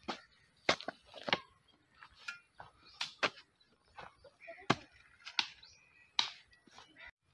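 Digging with a short-handled hoe in dry soil: sharp strikes of the blade and clods of earth landing on a dirt mound, a dozen or so at irregular intervals.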